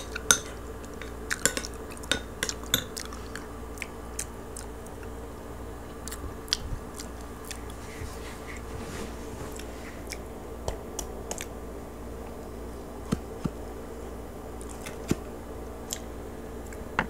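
Close-miked chewing and crunching of crispy roast pig (lechon), heard as scattered sharp clicks and smacks, most frequent in the first few seconds. A faint steady hum runs underneath.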